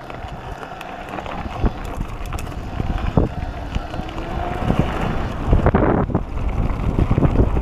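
Wind rushing over the microphone of an electric mountain bike riding a gravel trail, with tyres crunching and the bike knocking and rattling over bumps. The noise grows steadily louder as the bike picks up speed.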